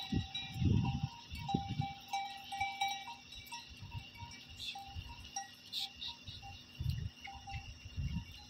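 Small bells on a grazing flock of goats and sheep clinking irregularly, short ringing notes with no steady rhythm. A few low rumbles come in near the start and again near the end.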